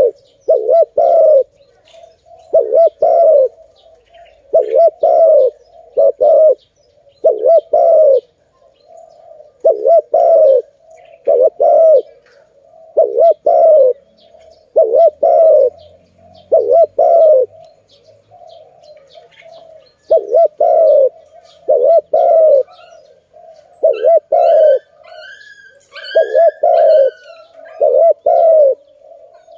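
A dove cooing over and over: low, loud coos in twos and threes every second or two. A higher-pitched bird chirps between them about three-quarters of the way through.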